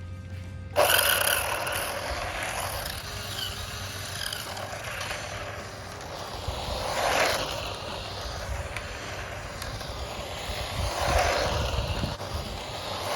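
Toy-grade Rastar LaFerrari remote-control car driving and drifting on pavement: a scraping rush of its small electric motor and hard plastic rear tyres that starts suddenly about a second in and swells twice as the car comes close.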